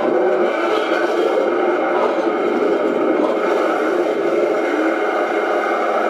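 RC model KV-1 tank's electronic sound unit playing a steady engine idle through its speaker.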